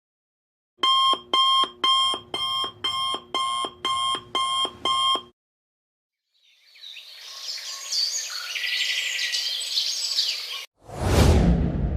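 Sound-effect clips in sequence. First, an electronic alarm clock beeps about ten times, roughly two beeps a second. Then a dense high chirping noise builds for about four seconds, and near the end a loud whoosh with a deep rumble cuts in.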